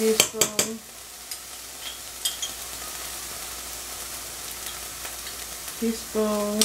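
Chopped onions and green peppers sizzling in a frying pan, with a utensil clicking against the pan in the first second. A short pitched hum sounds at the start and again just before the end.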